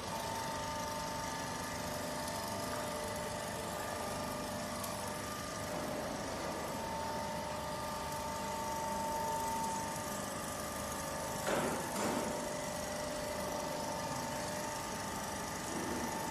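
Steady hum of machinery running, with a constant high whine over it and a couple of brief knocks about three quarters of the way through.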